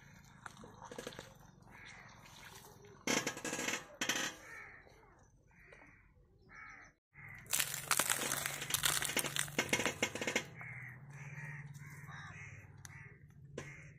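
Crows cawing over and over. Loud crackling and crunching comes twice, about three seconds in and again from about eight to ten seconds in, as a tractor tyre crushes eggs and other soft objects.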